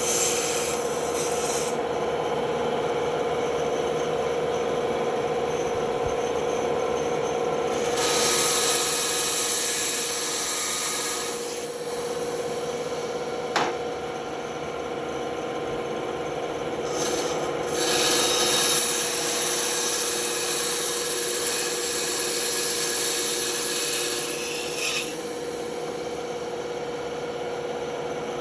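Band saw running steadily while its blade rasps through wood. The cutting is loudest from about eight to eleven seconds in and again from about seventeen to twenty-five seconds, and there is a single sharp click in between.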